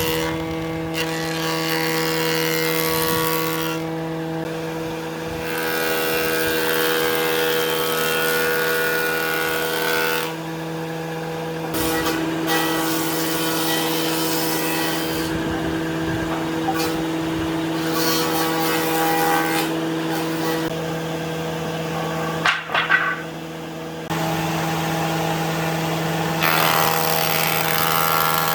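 An electric power tool's motor running steadily, its pitch shifting slightly as it works, with a couple of sharp knocks near the end.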